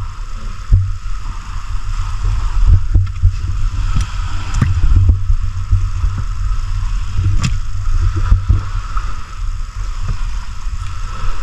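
Wet fish being handled and moved on a wooden boat floor: scattered short knocks and slaps over a steady low rumble.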